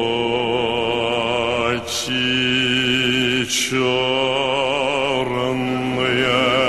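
Music: a singing voice holding long notes with vibrato over a steady low drone, with two short breaks about two and three and a half seconds in.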